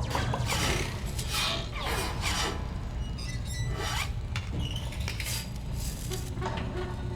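Animated sci-fi film sound effects: a string of sweeping whooshes that glide down and up in pitch, over a steady low hum.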